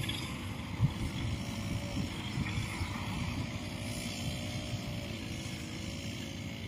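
Rice combine harvester's diesel engine running steadily, a continuous drone with a faint, slightly wavering hum.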